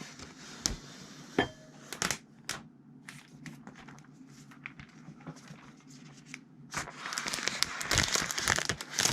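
Thin protective plastic film being peeled off a tablet. Scattered crackles and handling clicks come first, then a steady crackling peel over the last two seconds.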